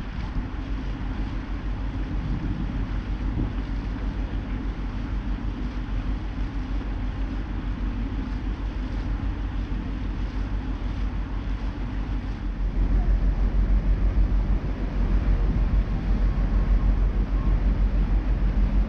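River cruise boat's engine running steadily under way, with water churning in the wake and wind on the microphone. About two-thirds of the way through, the low engine drone grows louder.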